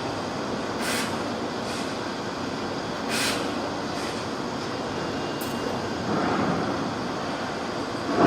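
Salvagnini fibre laser cutting machine running: a steady machine noise broken by short hisses every second or two, with a louder rough stretch about six seconds in.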